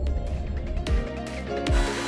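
Electronic intro music: sustained synth notes, with deep drum beats coming in about halfway through.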